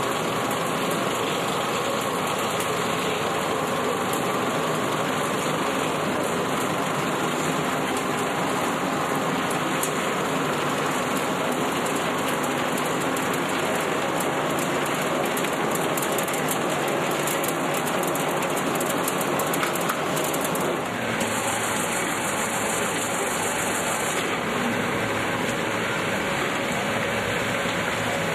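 Steady din of olive oil mill machinery running, an even dense mechanical noise. About 21 seconds in its tone shifts, with more low rumble.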